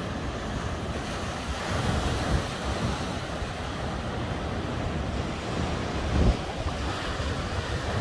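Ocean surf washing against the shore, with wind rumbling on the microphone and one louder buffet about six seconds in.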